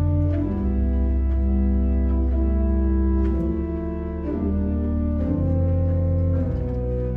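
Organ music: slow sustained chords over a deep held bass, the chords changing every second or two.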